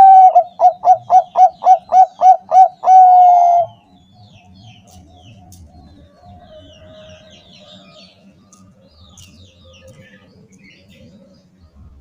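Bangkok-strain zebra dove (perkutut) singing its loud cooing song: a fast run of short notes, about four a second, ending in one longer held note, lasting the first three to four seconds. After it, only faint chirping of other birds and a faint coo.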